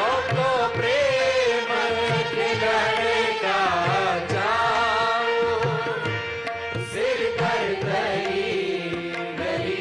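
Indian music: tabla drumming in a steady rhythm under a wavering, sliding melody line.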